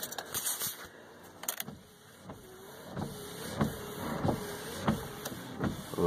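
Sharp clicks from the new turn-signal and wiper combination switch being worked, then a steady ticking about one and a half times a second from the 2002 Ford F-350's dash as the switch's functions are tested.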